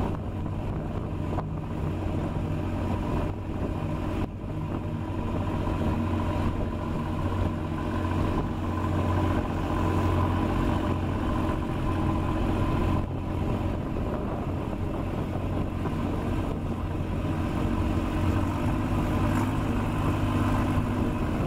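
Wooden fishing boat's engine running steadily under way, a constant low drone.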